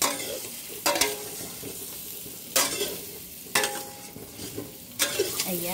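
Small boiled potatoes frying in butter in a stainless steel pan, stirred with a metal utensil. The sizzle flares up sharply about five times as the potatoes are turned, with metal scraping on the pan, and dies down between stirs.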